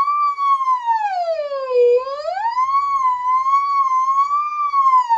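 A woman's voice doing a vocal siren on the 'ng' of 'sing' in the high register: one unbroken hummed glide that dips down, climbs back up, wavers near the top, then starts sliding down near the end.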